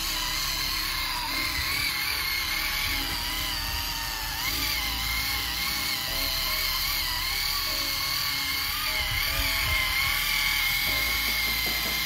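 Small electric gear motors of a home-built 4WD remote-control model tractor, whining steadily under load as it pulls a loaded trolley, the pitch wavering slightly as the load changes.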